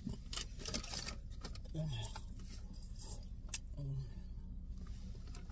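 Someone eating hot french fries, with faint rustling of the paper food packaging and small mouth clicks, and two short hummed 'mm' sounds about two and four seconds in, the first falling in pitch. A steady low hum sits underneath.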